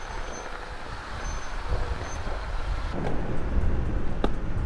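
Off-road vehicle's engine running at low speed on a rocky trail. The low rumble grows louder about three seconds in, and a single sharp knock comes near the end.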